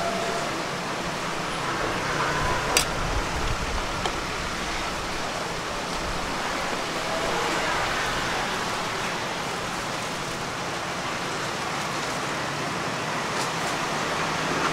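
Steady street background noise, a traffic hum, with one sharp click about three seconds in.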